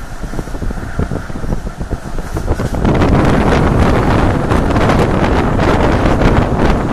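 Passenger train running along the track, heard from an open window: a fast clatter and rattle, with wind buffeting the microphone. About three seconds in, the rushing wind noise jumps up and covers it as the phone is held out of the window.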